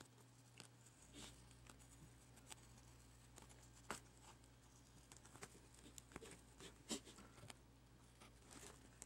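Near silence with faint scattered clicks and scratches of hands and a thin tool working adhesive tape off the edge of a laptop touchscreen digitizer, over a steady low hum.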